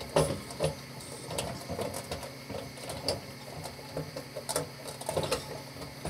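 Microwave oven running with a steady hum, with irregular crackles and pops from an eco-friendly light bulb arcing and smoking inside it.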